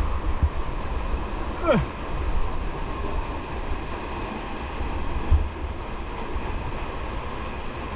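Rushing canyon river water with wind buffeting the microphone, a steady loud rumble. About two seconds in, a short cry glides steeply down in pitch.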